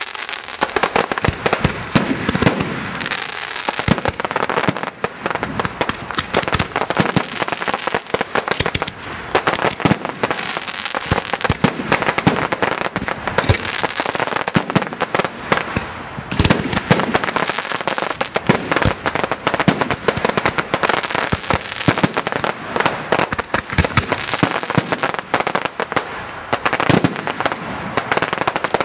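Aerial fireworks display: a dense, unbroken run of sharp bangs and crackling from bursting shells, one report overlapping the next.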